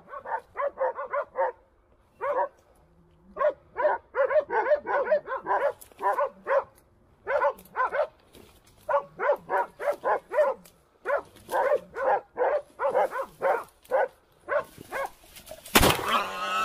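Hunting dogs barking at a wounded wild boar, in rapid runs of short barks with brief pauses between them. Near the end a single loud shotgun shot goes off, followed by a shout.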